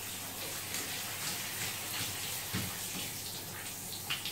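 Shower water running steadily and spraying onto a wet cat's fur as it is rinsed.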